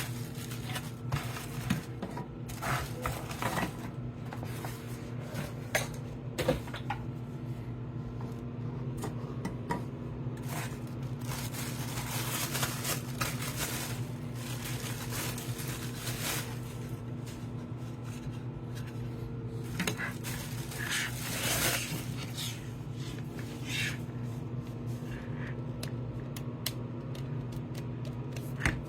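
Intermittent clicks, scrapes and light rattles of hard objects being handled, over a steady low hum.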